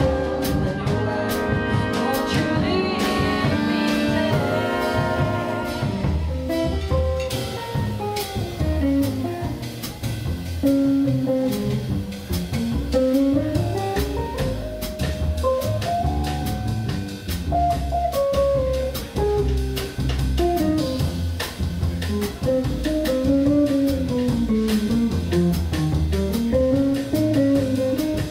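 Small jazz big band playing live: the horn section holds sustained chords for the first several seconds, then an electric archtop guitar plays a solo line over double bass and drums.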